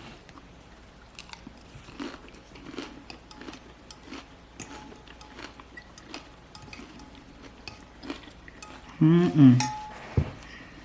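Light clinks and taps of dishes and cutlery being handled, then a short loud vocal sound about nine seconds in.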